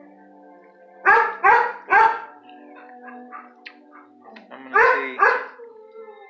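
Dog barking: three sharp barks in quick succession about a second in, then two more near the end.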